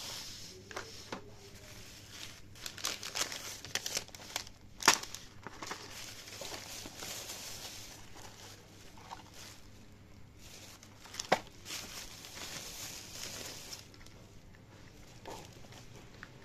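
Thin plastic carrier bag crinkling and rustling as items are pulled out of it, with two sharp clicks, the loudest sounds, about 5 seconds and 11 seconds in.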